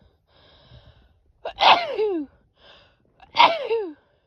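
A woman sneezing twice, about a second and a half apart. Each sneeze comes after a gasping in-breath and ends in a voiced cry that falls in pitch.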